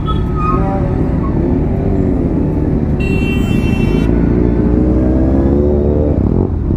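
Kawasaki Z900's inline-four engine running under the rider as the bike rolls through traffic, rising in pitch about five seconds in as it accelerates. A high buzzing tone cuts in for about a second midway.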